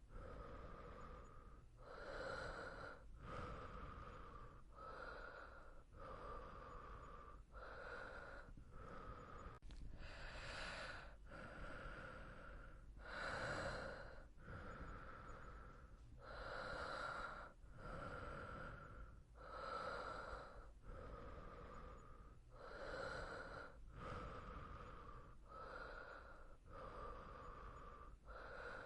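Soft, slow breathing of a sleeping person, inhale and exhale following each other in an even rhythm, about one breath sound every second or so, with a few slightly deeper breaths along the way.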